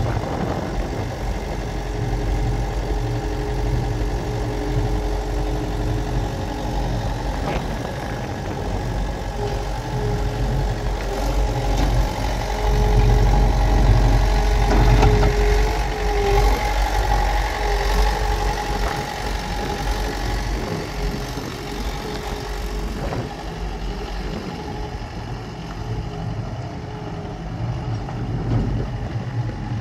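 John Deere commercial wide-area mower's engine running steadily. In the middle it grows louder, with a steady whine over it for several seconds while a side cutting deck is raised.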